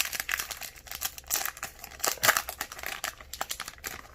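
Crinkling foil wrapper of a Pokémon booster pack and cards being handled: a dense run of crackles and light clicks.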